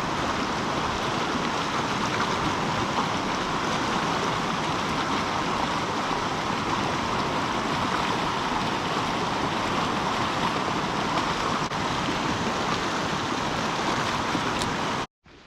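Steady rush of a flooded forest river, its fast-flowing water making an even, unbroken noise that cuts off suddenly near the end.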